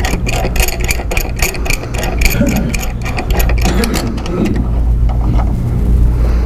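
Rapid, even clicking, several a second, as a steel C-clamp's screw is wound down by hand to clamp a stop block to a miter saw; the clicking dies away about three and a half seconds in. A steady low hum runs underneath.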